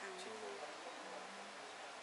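Quiet background: a steady, even hiss with faint voices murmuring softly.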